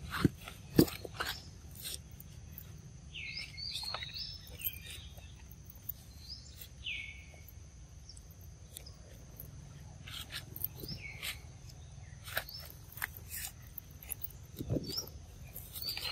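Macaques eating mango: scattered wet chewing and smacking clicks, the loudest two within the first second. Short high chirping calls come in a cluster about three to four seconds in, once near seven seconds, and again at the very end.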